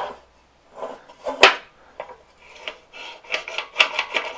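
Briggs & Stratton recoil starter being pulled out and let wind back, the new rope rasping through the housing's eyelet, with a quick run of ticks in the second half as it rewinds. It retracts smoothly, a sign that the recoil spring and new cord are working.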